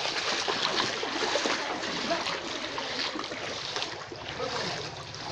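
Legs wading through knee-deep floodwater, the water swishing and splashing steadily with each step.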